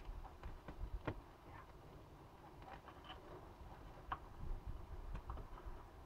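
Diesel-fired foundry furnace running with a low, faint rumble, with a few sharp clicks and knocks scattered over it.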